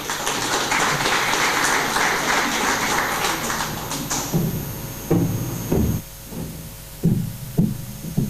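An audience applauding for about four seconds, fading out, then a few separate dull thumps.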